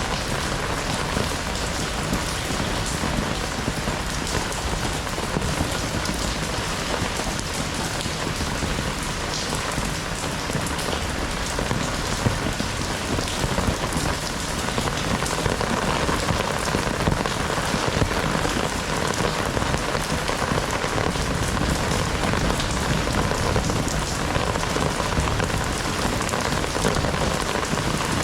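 Heavy rain pouring steadily onto outdoor surfaces, a dense even hiss dotted with individual drop impacts, swelling slightly louder about halfway through.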